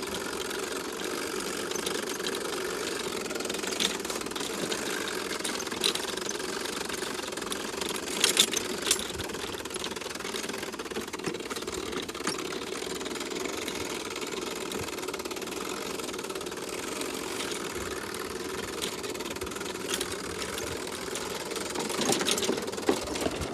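Battery-powered electric lawn mower running steadily as it cuts grass: a constant motor hum with a few sharp ticks.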